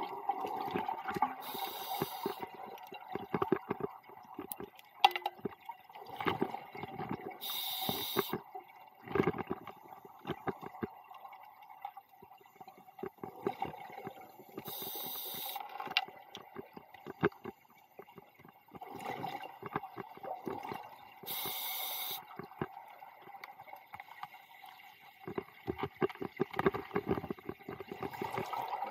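A scuba diver breathing through a regulator underwater: a short hissing inhale about every six or seven seconds, four times, each followed by a long gurgling, crackling stream of exhaled bubbles. A faint steady tone runs underneath.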